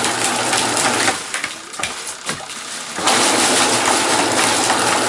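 Water rushing and splashing as a steady hiss, which stops abruptly about a second in and starts again suddenly two seconds later, with a few clicks in the pause.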